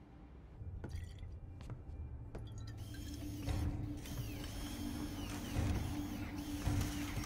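Film soundtrack: a few sharp clicks, then from about three seconds in a low steady drone with mechanical whirring and clicking layered over it, rising and falling in repeated arcs.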